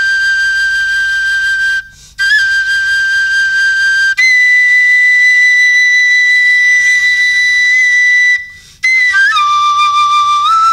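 A flute playing long held high notes with short breaks for breath: one note held, a brief pause about two seconds in, the same note again, then a step up to a higher note held for about four seconds, and after another pause a slide down to a lower note.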